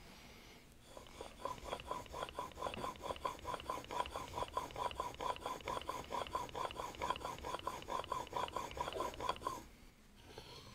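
Steel smoothing plane blade being honed on a waterstone: rapid back-and-forth scraping strokes, about four a second, that stop near the end.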